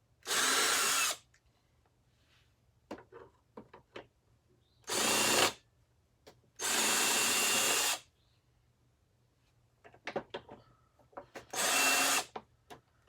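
Power drill spinning in four short bursts, each starting and stopping abruptly, as it is run against the screws of a vacuum cleaner's base plate. Small clicks and knocks of handling come between the bursts.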